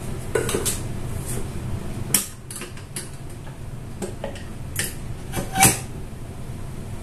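Kitchenware being handled: a series of light clinks and knocks at irregular intervals, the loudest about five and a half seconds in with a short ring.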